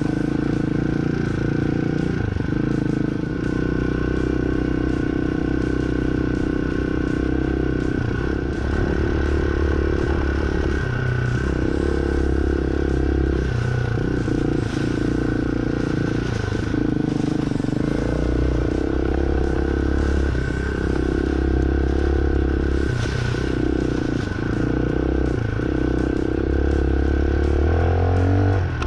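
Hawk 250 dual-sport motorcycle's single-cylinder four-stroke engine running while riding, rising and easing off with the throttle every few seconds. Clatter from the bike over rough ground.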